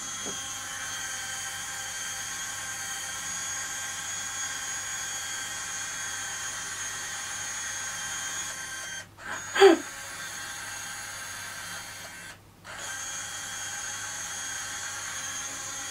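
YSL Rouge Sur Mesure lipstick-making machine whirring steadily as it calibrates its colour cartridges, a small motor hum with several fixed tones. The hum cuts out briefly twice, and a short falling vocal sound comes about ten seconds in.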